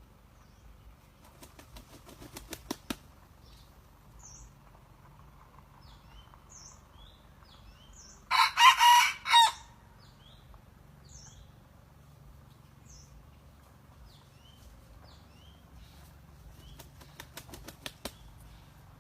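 A rooster beats its wings in a quick run of claps about a second in and again near the end, and gives one loud short crow about eight seconds in. Small birds chirp faintly in between.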